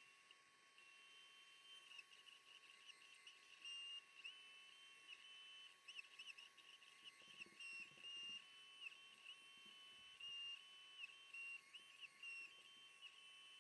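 Faint, high whine from a Glowforge laser cutter's head motors as the laser head moves while cutting acrylic. The pitch jumps and glides with each short move, over a steady machine hum.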